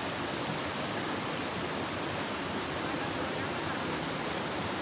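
River water rushing over rocks in a small rapid: a steady, even rush of water.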